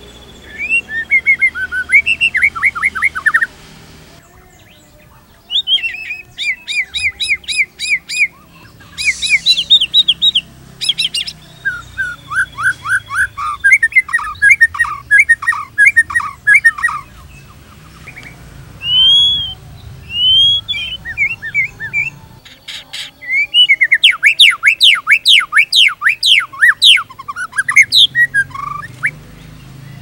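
White-rumped shama (murai batu) singing: phrases of fast, rapidly repeated notes and trills mixed with whistled slurs, each phrase a few seconds long and broken by short pauses.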